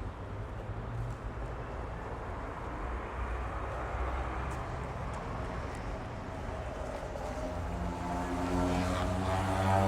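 Street traffic: a steady low rumble of passing vehicles. In the last couple of seconds one engine grows louder, its pitch slowly dropping as it goes by.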